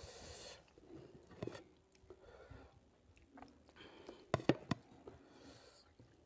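Close-up wet, sticky squishing of a hand mixing rice with pork curry on a plate, with a cluster of sharp clicks a little past the middle.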